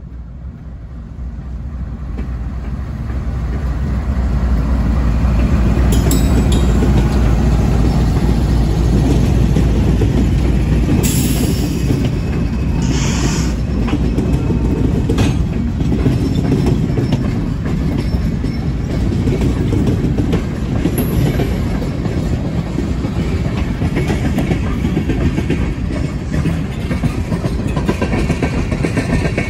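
Norfolk Southern freight train's diesel locomotives approaching and running past close by, growing louder over the first few seconds with a deep engine drone that fades about halfway through. A string of tank cars then rolls past, its wheels clattering steadily on the rails.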